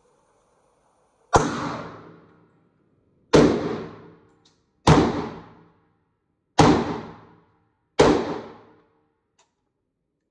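Five gunshots fired one at a time, about one and a half to two seconds apart, each dying away in a short echoing tail.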